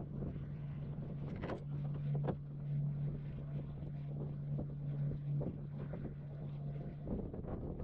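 Wind buffeting the microphone in gusts, with a steady low hum underneath that drops out about two-thirds of the way through.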